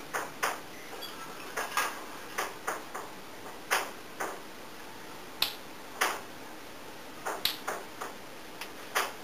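African grey parrot making a run of about twenty sharp, dry clicks at irregular intervals, some in quick pairs.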